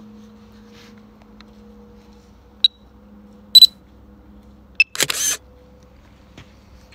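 Phone drone-control app sounds as a photo is taken: short high beeps, the loudest just past halfway, then the app's camera-shutter sound about five seconds in.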